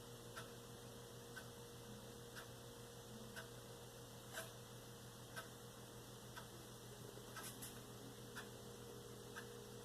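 Faint clock ticking steadily once a second over a low electrical hum.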